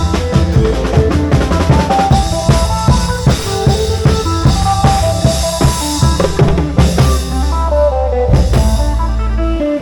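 Isan klong yao long-drum ensemble playing: drums beating a dense, steady rhythm under a fast melodic line of short changing notes.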